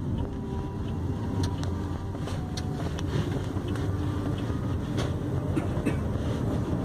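Car engine and road noise heard from inside a moving taxi's cabin, with a scattering of light clicks and rattles.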